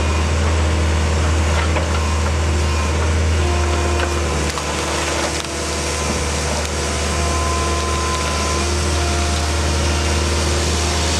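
Heavy diesel machinery running steadily under load, with a deep hum and shifting whine, and scattered sharp cracks and knocks on top.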